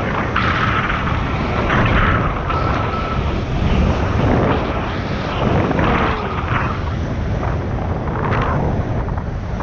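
Wind buffeting the microphone of a camera carried aloft under a parasail: a heavy, steady rumble that swells in gusts, with a faint thin whistle during the first three seconds.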